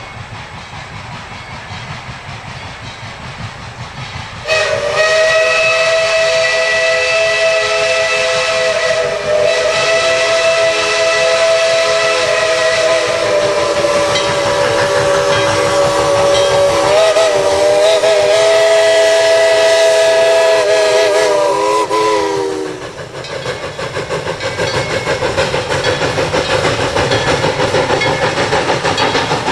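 Steam locomotive whistle sounding one long blast, a chord of several tones, for about eighteen seconds; it wavers in pitch near the end as it is worked, then cuts off. Before and after it, the train runs by with steady rumbling and hiss.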